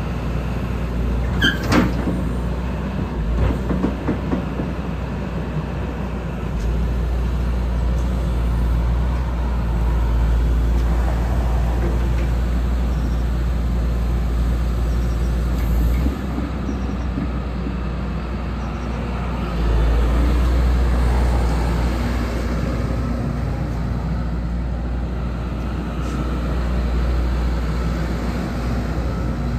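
Hyundai R170W-7A wheeled excavator's diesel engine running while the boom lifts and the upper structure swings, the engine note going up and down with the hydraulic load in louder stretches. A few sharp knocks in the first few seconds.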